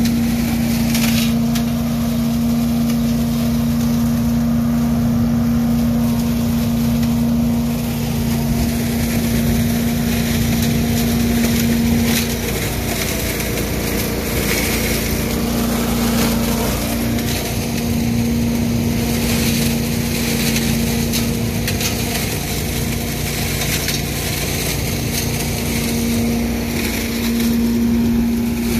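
Billy Goat debris vacuum loader with an 18 hp V-twin engine, running steadily with a constant hum. Raked leaves are sucked up the intake hose and through the machine, adding scattered crackles and clatters.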